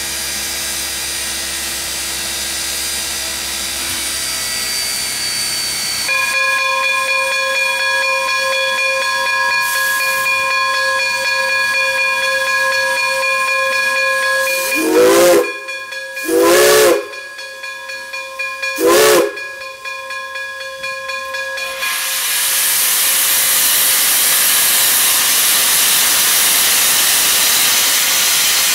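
Steam locomotive No. 98, a 4-4-0, standing with steam hissing steadily. About halfway through its whistle gives three short blasts. Near the end the cylinder cocks open and blow off steam in a loud, steady hiss.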